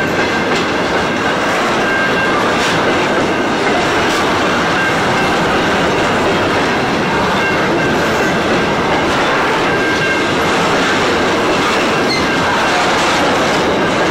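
Aurizon grain hopper wagons rolling past at close range: a steady rumble of steel wheels on rail, with wheel clicks and a faint high squeal that comes and goes.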